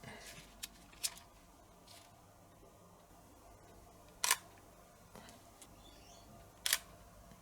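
Camera shutter clicking twice as photos are taken, about two and a half seconds apart, with a couple of fainter clicks about a second in.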